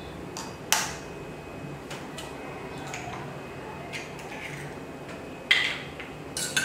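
An egg cracked against the rim of a ceramic cup: a few sharp taps and clinks of shell and crockery, the loudest near the end.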